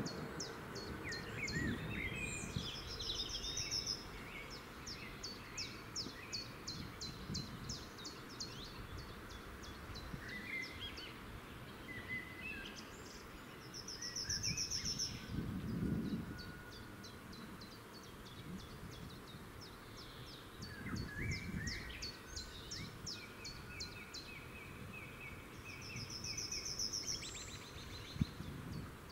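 Birds singing, one repeating the same short high phrase about every twelve seconds, over a low rumble of wind on the microphone that swells now and then.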